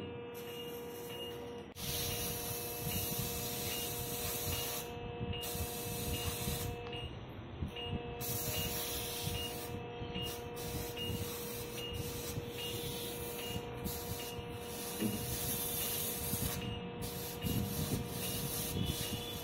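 Operating-room sounds during surgery: the steady activation tone of an electrosurgical (cautery) unit, switching off and on a few times as the cautery pencil is used, with a hiss that comes and goes. Under it a patient monitor beeps regularly, about one and a half beeps a second.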